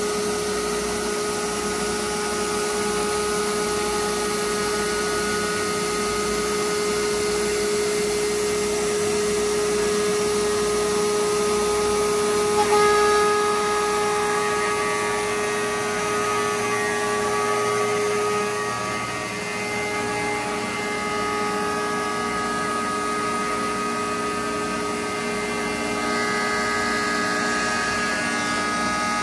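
DMS CNC router's spindle running and milling white foam: a steady whine over the hiss of the cut, its pitch shifting partway through.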